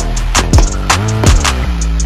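Background music with a steady beat: deep kick-drum hits that slide down in pitch, sharp percussion hits and sustained bass notes.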